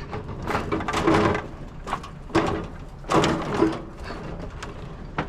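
Several short bursts of knocking and rattling, as of items being handled and set down.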